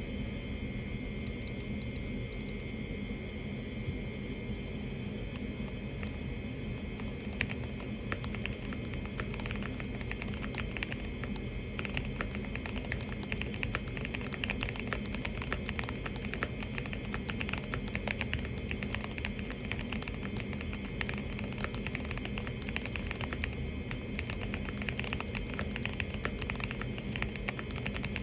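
Typing on a mechanical keyboard fitted with stock Gateron Milky Top Black Bottom switches: a stream of keystroke clacks, sparser in the first dozen seconds, then faster and more continuous, over a steady low hum.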